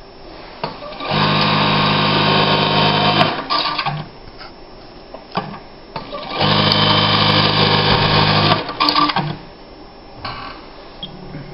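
Juki LBH-1790S electronic lockstitch buttonhole machine sewing two buttonholes, each a steady high-speed run of about two seconds. Each run ends in a few short clicks and clacks from the mechanism as the cycle finishes.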